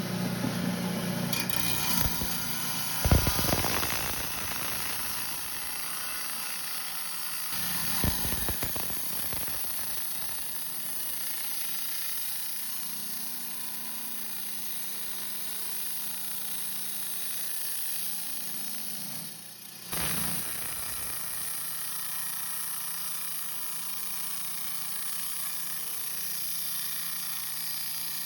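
Diamond-blade rock saw cutting through a Kentucky agate: a steady high, grinding hiss of the blade in the stone. Two sharp knocks come in the first several seconds, and the sound dips briefly and picks up again about two-thirds of the way through.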